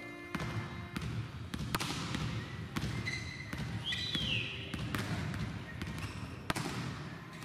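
Volleyballs being struck and bouncing on an indoor court, an irregular run of sharp smacks echoing in a large sports hall, with a few short squeaks about three and four seconds in.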